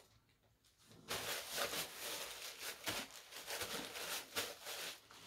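Brown paper food wrapper crinkling and rustling in the hands, a dense run of small crackles starting about a second in.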